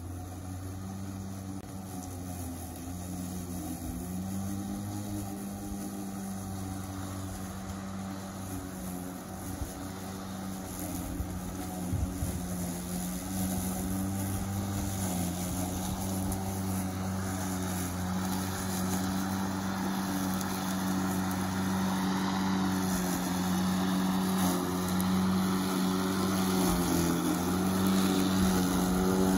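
EGO cordless battery-powered lawn mower cutting grass, its electric motor and blade giving a steady hum that grows louder toward the end.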